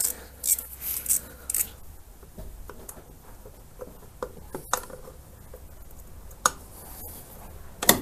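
Scattered light clicks and taps of metal tools and parts being handled on a motorcycle engine, with a sharper click near the end.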